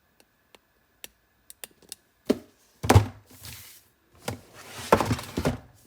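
Product boxes being handled and set down: a few light clicks, then several heavier thuds with some rustling.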